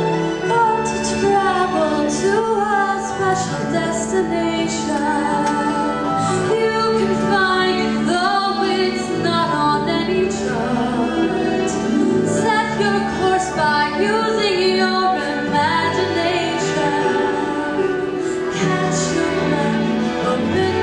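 A woman singing a song into a handheld microphone, with instrumental accompaniment holding long sustained notes beneath her voice.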